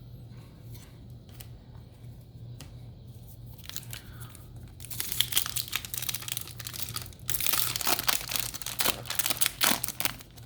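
A foil Yu-Gi-Oh! booster pack wrapper crinkling and being torn open. The loud crackling starts about five seconds in, after a few light ticks, and is loudest near the end.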